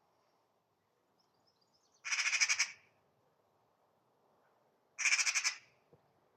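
Magpie giving two harsh, rattling chatter calls, each just under a second long and about three seconds apart: the scolding call it makes while mobbing a cat.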